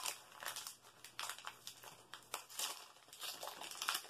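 Foil booster-pack wrappers crinkling on and off as trading-card packs are handled and opened.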